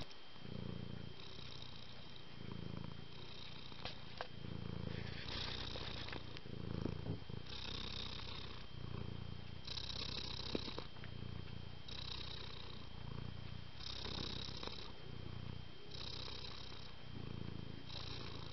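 A cat purring in a slow, even rhythm, about one breath cycle every two seconds.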